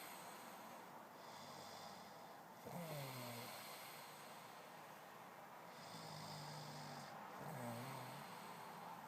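A sleeping man snoring: low, rough snores about three seconds in and again from about six to eight seconds, with breathy hiss between them.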